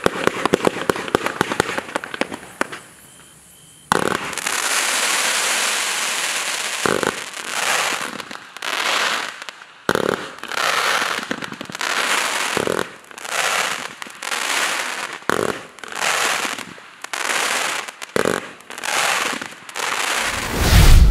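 A 200-shot fireworks compound cake firing fanned shots with no salutes: a rapid string of sharp launch pops, a short lull about three seconds in, then a run of shots about one a second, each breaking into a loud crackling hiss of stars.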